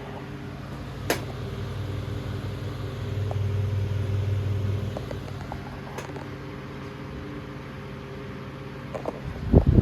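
Antique Emerson 29668 16-inch six-blade table fan running: a steady motor hum under the rush of air from the blades, swelling a little around the middle. Two sharp clicks, about a second in and about six seconds in, and loud low thumps near the end.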